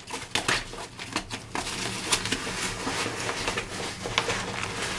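A nylon bag full of brass key blanks being handled and put away. The bag's fabric rustles, and the blanks clink with several sharp clicks in the first second or so, then a few scattered clicks.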